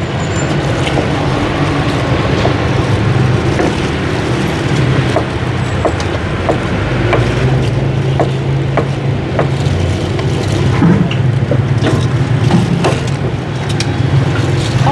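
A steady motor hum, low and continuous, that eases off briefly around the middle, with scattered light clicks and knocks throughout.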